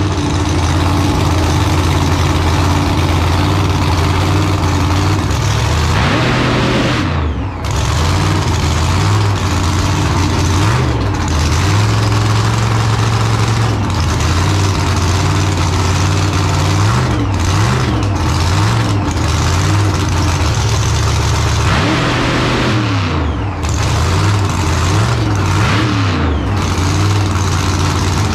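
Blown V8 of a six-second doorslammer drag car running at a loud, lumpy idle, with repeated throttle blips that send the revs climbing and falling back about half a dozen times.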